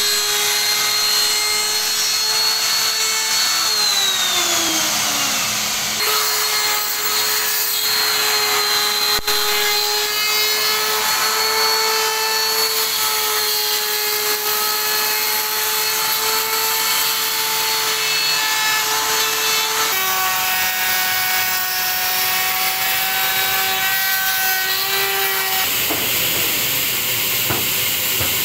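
Handheld electric router motor running with a steady high whine, its pitch sliding down about four seconds in as it winds down. A similar steady power-tool whine carries on afterwards, changing pitch abruptly a few times.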